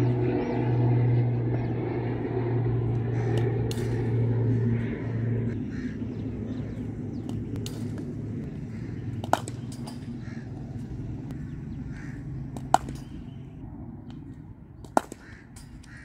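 Three sharp cracks a few seconds apart from a cricket bat hitting a hard leather ball during throwdowns. Under them runs a low, steady engine hum that is loud at first and fades away.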